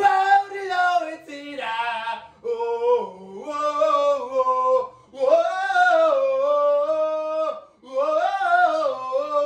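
A man singing a Japanese pro baseball player's cheer song unaccompanied at full voice, holding long drawn-out 'oh-oh-oh' notes.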